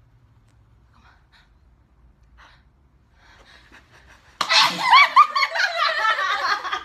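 A person sneezes: a sudden loud burst about four and a half seconds in, after a few seconds of faint sounds, followed by vocal sounds.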